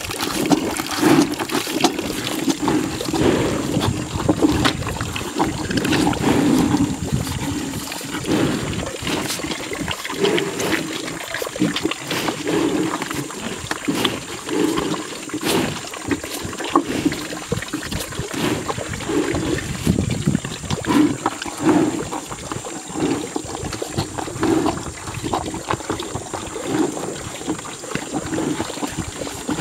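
Gir cows slurping whey from a plastic bucket held up to their muzzles: wet sucking and lapping in an irregular rhythm, with small knocks now and then.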